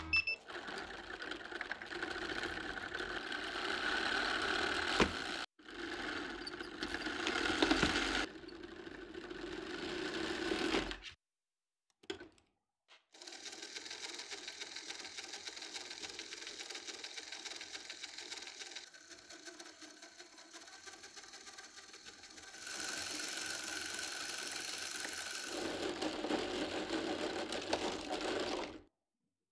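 Lego Technic treadmill running: its plastic tread links clatter steadily as a small rubber-wheeled Lego vehicle rides on it. The rattle drops out briefly about five seconds in and for about two seconds near the middle, and varies in loudness from stretch to stretch.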